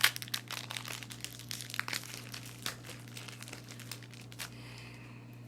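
Foil wrapper of a Pokémon card booster pack crinkling and tearing as it is opened. The crackle is loudest at the start and thins out after about four seconds, over a low steady hum.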